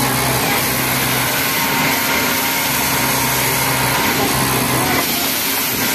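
Pegasus cylinder-bed industrial flatlock sewing machine stitching a t-shirt neckline at high speed, a dense mechanical whirr and rattle that runs in several short spells back to back.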